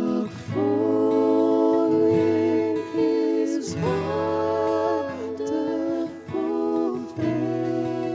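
Worship band singing a slow hymn: several voices holding long notes in harmony, with acoustic guitar picking and keyboard underneath.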